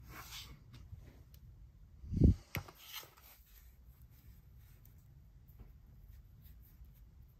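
Plastic toy figures being handled on a tabletop: soft rubbing and small clicks, with one dull thump about two seconds in, followed at once by a sharp click.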